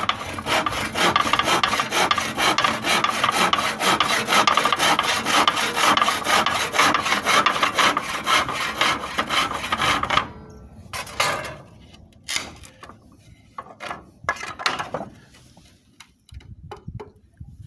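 Handsaw cutting through wood with quick, even strokes, about four a second, stopping about ten seconds in. A few scattered scrapes and knocks follow.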